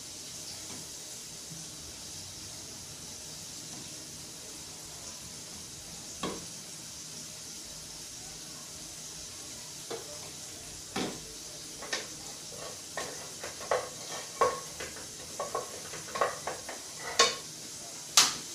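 A steel stew pot sizzling and hissing steadily on a portable gas burner. From about six seconds in come sharp clicks and knocks, quickening toward the end, as a spoon taps ingredients out of a plastic bowl and a wooden spoon knocks against the pot while stirring.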